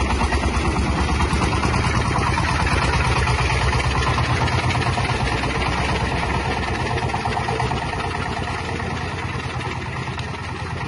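Engine of a self-propelled grain thresher running as the machine drives off, with a rapid, even beat that fades over the last few seconds as it moves away.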